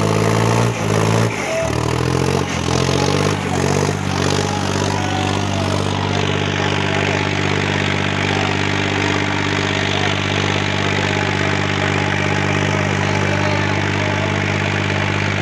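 John Deere 5036 tractor's three-cylinder diesel engine running hard under heavy pulling load; its pitch shifts in the first second or two, then holds steady.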